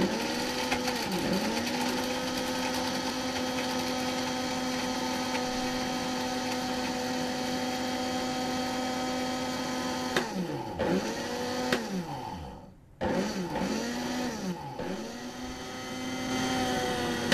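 Electric mixer-grinder's small dry jar grinding a batch of whole spices (cumin, coriander seed, black pepper, cardamom, cinnamon) into powder. The motor whines steadily for about ten seconds, then runs in several short pulses, its pitch sagging and picking back up with each one.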